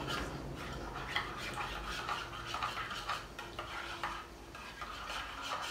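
A utensil stirring and scraping against the inside of a small stainless steel cup, with irregular clinks of the utensil on the metal, as the dough ingredients are mixed together.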